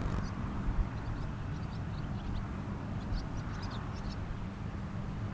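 Wind rumbling on the microphone over a steady low hum from a passing ferry, with small birds chirping in quick short notes, more of them in the second half.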